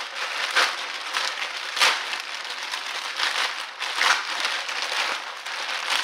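Packaging being handled and pulled open, a continuous rustle with a few sharper, louder crackles about half a second, two seconds and four seconds in, as the package resists being opened.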